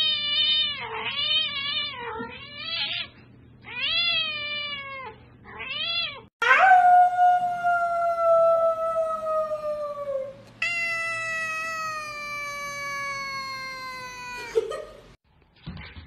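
Domestic cats meowing: a run of short meows that rise and fall in pitch, then two long, drawn-out meows of about four seconds each, each sliding slowly down.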